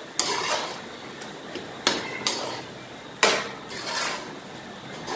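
Slotted steel spoon scraping and knocking against a steel kadai as boondi soaked in sugar syrup are stirred over low heat, about four separate strokes with short pauses between them.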